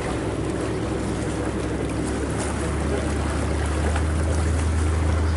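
Boat engine running with a steady low hum over a hiss of water and wind. The hum grows stronger about halfway through.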